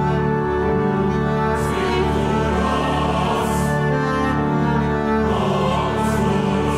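Background music of slow, long held notes, with soft swells rising and fading every second or two.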